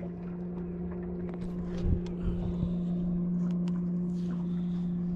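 A boat's motor running steadily, a low even hum, with a few short knocks on the boat about two seconds in.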